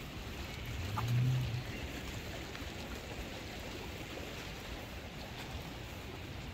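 Steady rushing of a river swollen with floodwater, running fast below a footbridge. A brief low rumble comes about a second in.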